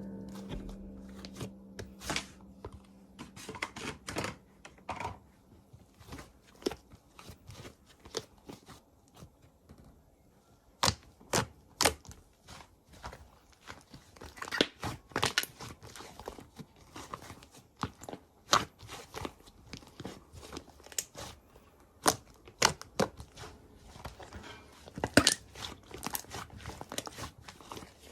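Slime being pressed, folded and stretched by hand, giving irregular sticky crackles, pops and crunchy clicks. A tail of music fades out in the first couple of seconds.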